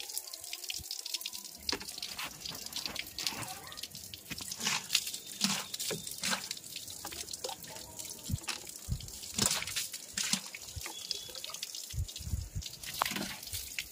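Water spray from a jet pump washer hitting the finned condenser coil and metal casing of a Panasonic inverter split AC outdoor unit, hissing with uneven splashes and drips.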